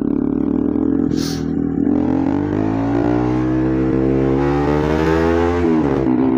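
Motorcycle engine, most likely the Pulsar RS200's single-cylinder, accelerating: its pitch climbs steadily for several seconds, then drops sharply near the end as the throttle comes off or it shifts gear. A short hiss comes about a second in.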